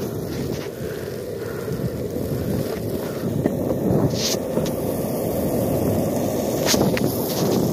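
Skateboard wheels rolling over pavement, a steady rumble that slowly grows louder, with two sharp clicks from the board about four and seven seconds in.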